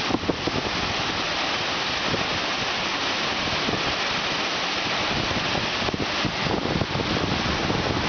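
Waterfall pouring into its plunge pool and the rocky stream below it, a steady, even rush of falling and tumbling water.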